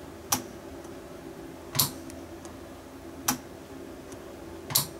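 A 12 V relay clicking shut and open in turn as a foot pedal switch is pressed and released: four sharp clicks about a second and a half apart. Every other click is fuller, when the relay pulls in and switches battery voltage through to the welding electrodes.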